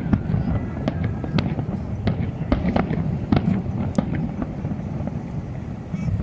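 Fireworks display: a rapid string of sharp bangs and crackles that thins out after about four seconds, over a steady low rumble.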